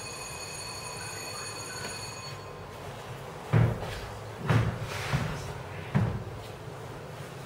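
Four dull thumps, about a second apart, of children's shoes landing on the floor as they thrust their legs out. A faint, steady high whine stops about two and a half seconds in.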